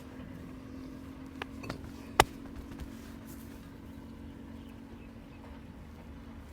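Hands slapping during a massage: a few sharp slaps, the loudest about two seconds in, over a steady low hum that stops near the end.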